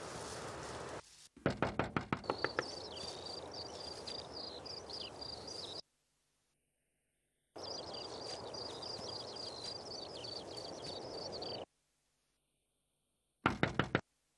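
A fist knocking rapidly on a car's side window: a quick run of about ten knocks a second in, and a shorter burst of four or five near the end. Between them a high, repeated chirping of birds or insects runs over a faint rural hush.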